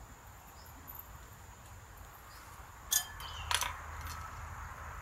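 Two sharp clinks about half a second apart, around three seconds in, from a metal measuring spoon and spice containers being handled at a glass mixing bowl. Behind them is a quiet, steady hiss.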